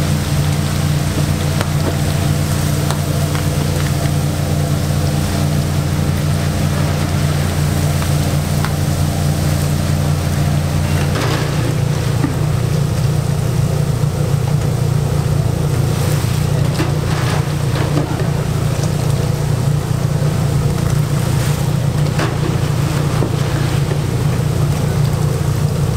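Steady low mechanical hum from a commercial deep-fryer station, with the noisy hiss of battered bugak frying in hot oil. The hum's pitch shifts about eleven seconds in. A few short scrapes or knocks of a wire skimmer stirring the batch come through.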